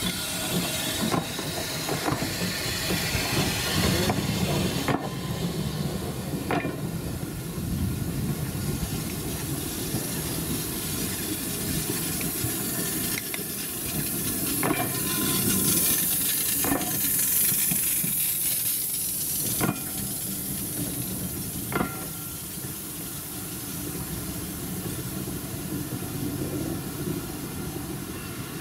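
Bagnall steam locomotive No. 2 passing at close range with a hiss of steam, followed by its train of coaches rolling slowly past, the wheels giving about ten irregular sharp clicks over the rail joints.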